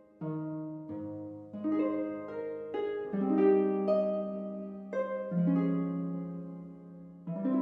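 Background music: a gentle instrumental tune of plucked notes, each struck and left to ring away.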